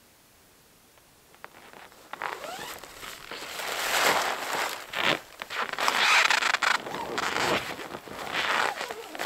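Rustling and scraping of the hot tent's heavy canvas door flap being handled and pulled open. It starts faintly about a second and a half in and grows louder, with short sharp scrapes throughout.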